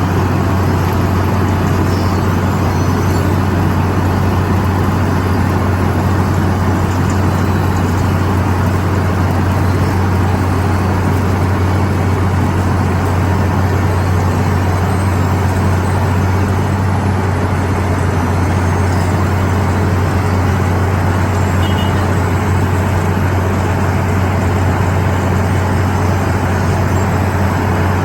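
Milling machinery running steadily: a constant low hum over even mechanical noise, unchanging throughout.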